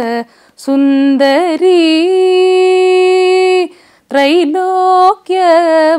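A woman singing a Carnatic composition in raga Kambhoji, solo voice with no accompaniment heard. She sings 'sundari' with sliding ornaments, holds one long steady note from about two seconds in, breaks briefly, and then starts the next phrase.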